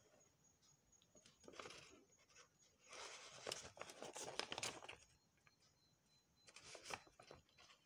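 Scissors cutting out a fabric collage piece, faint crisp snips and rustling of the fabric and paper pattern as they are handled, in three short spells, the longest about three seconds in.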